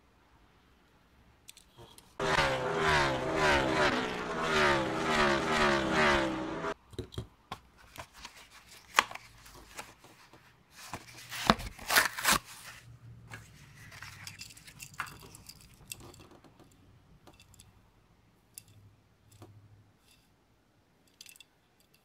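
Diecast toy car blister pack being opened by hand: a loud wavering squeal for about four seconds as the packaging is pulled apart, then the cardboard card tearing sharply about eleven seconds in. Lighter crinkling and clicks of the plastic blister follow.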